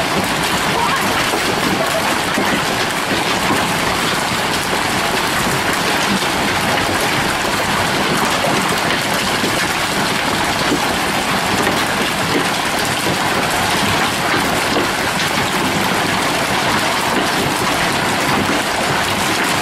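Hailstones pelting down steadily, a dense, even clatter of many small impacts on the ground and nearby vehicles during a hailstorm.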